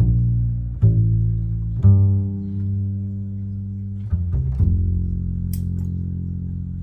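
Background music: slow, low plucked string notes, each ringing on for a second or more before the next one starts.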